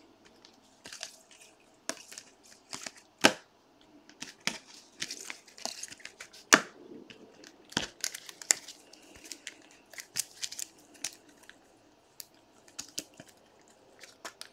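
Trading cards in plastic sleeves and rigid toploader holders being handled and stacked: scattered sharp clicks and taps of plastic on plastic and on the table, with soft crinkling of the sleeves.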